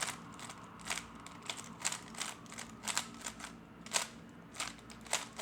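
Magnetic 3x3 speed cube turned by hand: a string of separate clicks as its layers snap into place, about two or three a second at an uneven pace.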